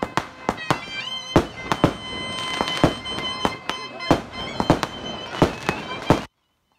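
Bagpipes and dhol drums playing together: a steady pipe drone and melody under loud, irregular dhol strokes. The music cuts off abruptly about six seconds in.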